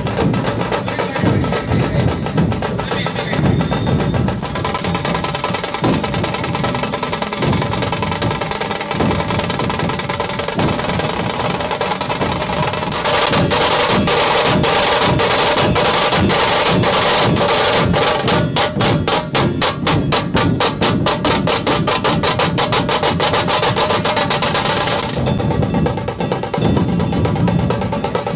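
Dhol-tasha ensemble drumming: large barrel dhols beaten together with tasha drums in a driving rhythm. About halfway through it builds into a louder, fast, even roll, and it eases back near the end.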